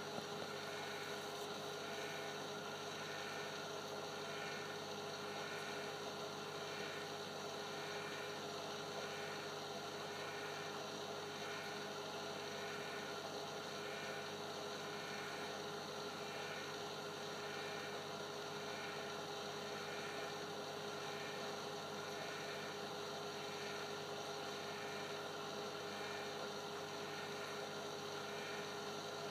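Steady electrical hum with several constant tones over a light hiss, and a faint pulse repeating about once a second, typical of running saltwater-aquarium equipment.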